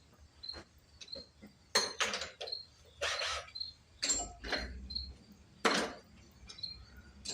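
Several sharp clatters and scrapes of hand tools and metal parts being handled. A cricket chirps steadily in the background, about two chirps a second.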